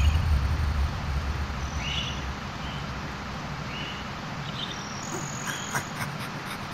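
Night-time outdoor ambience: short, high chirps every second or so over a steady hiss. A deep rumble dies away in the first second.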